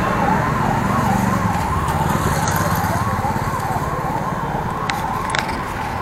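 Emergency-vehicle siren with a fast warble, its pitch swinging up and down about three times a second without a break, over low road-traffic rumble.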